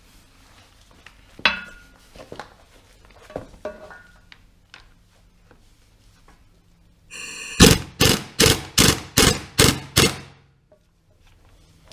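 Tool clicks and knocks, then a run of about eight loud, evenly spaced metal impacts, about two and a half a second, as a very tight gearbox drain plug is forced loose with a 17 mm Allen key.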